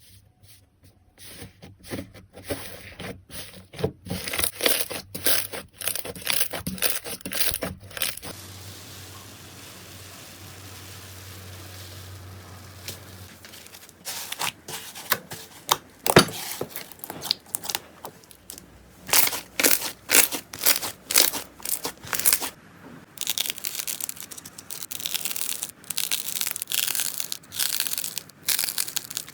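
Slime being squeezed and worked by hand, making runs of crisp crackles and pops, with a quieter, smoother stretch in the middle.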